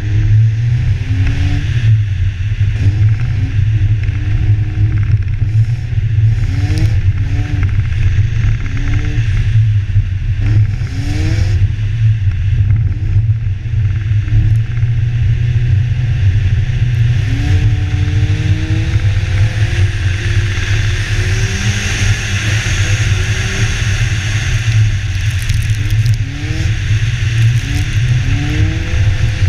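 BMW car engine revving up and falling back again and again in short bursts as the car drifts on snow-covered lake ice, under a heavy, steady rumble of wind on the hood-mounted camera's microphone. A hiss of tyres and snow grows louder for a few seconds a little past the middle.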